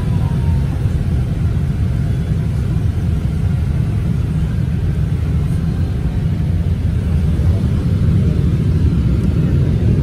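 Jet airliner cabin noise in flight: the steady low rumble of engines and airflow heard from a passenger seat, growing a little louder near the end.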